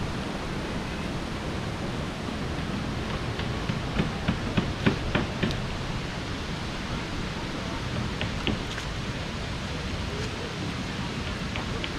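Steady rushing of river water, an even hiss with no breaks. A few short, sharp clicks stand out, clustered about four to five seconds in and again near the end.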